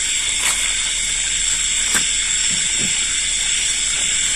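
Steady high-pitched chirring of night insects, with a few faint brief low sounds over it.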